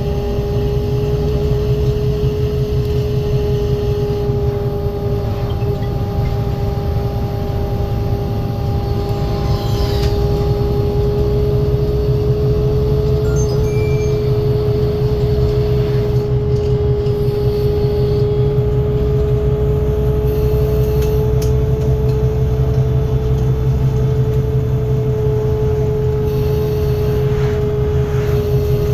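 On-board sound of a Menarinibus Citymood 12 CNG city bus, with its FPT Cursor 9 natural-gas engine and ZF Ecolife automatic gearbox running steadily. A low rumble sits under a steady whine that creeps slightly higher in pitch.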